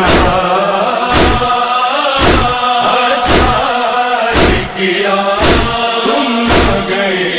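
Male voices chanting a noha lament unaccompanied, over a steady chest-beating (matam) beat of about one stroke a second.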